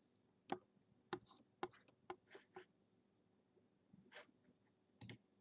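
Faint, irregular clicking of a computer keyboard and mouse, about eight separate clicks spread over a few seconds.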